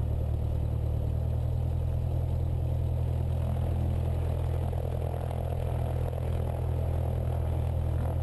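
Cessna 172's piston engine and propeller running steadily at low taxi power, a low engine hum heard from inside the cabin.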